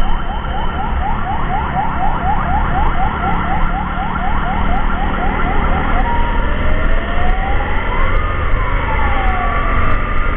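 Electronic emergency siren in fast yelp mode, quick rising sweeps about four a second, switching about six seconds in to a slow wail that rises and falls over a few seconds. A steady low rumble runs underneath.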